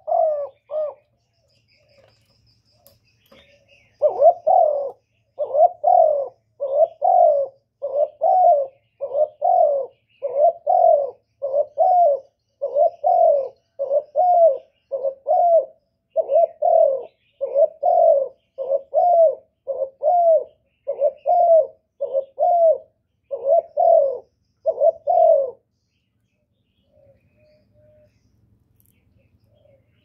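Spotted dove cooing: a brief call right at the start, then a long, even run of short, low coos, somewhat more than one a second. It goes on for about twenty seconds and stops about four seconds before the end.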